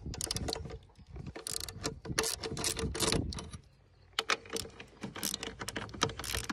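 Ratchet with a 13 mm socket clicking in quick runs as bolts are unscrewed, with a short break a little past halfway.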